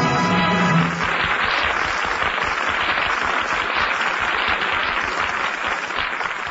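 An orchestra's closing chord cuts off about a second in, and a studio audience applauds through the rest.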